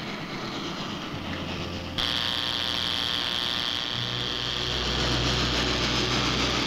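Film sound effect of an electric ray gun firing: a steady electric buzz with a high whine that starts abruptly about two seconds in, over a low hum that grows stronger about four seconds in.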